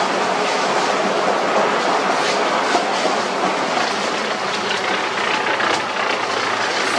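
Concrete-making machinery in a tile factory running with a steady rattling clatter over a low motor hum.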